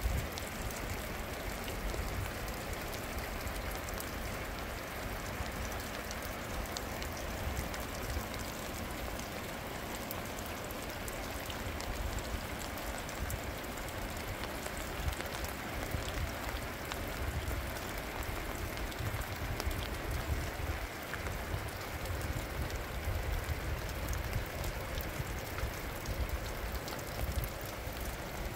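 Steady rain falling, with many separate drop hits over an even wash of rain noise and a low rumble underneath.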